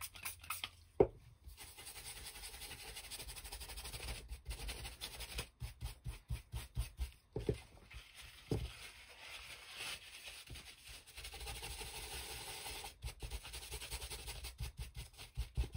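Flat paintbrush being wiped and dabbed on a paper towel to clean off paint: soft rubbing and scratching of bristles and paper, with a sharp tap about a second in and scattered light knocks.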